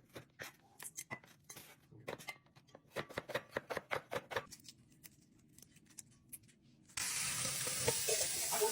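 Knife chopping Thai eggplant on a cutting board, a quick run of sharp knocks for about four seconds. About seven seconds in, a hot pan suddenly starts sizzling.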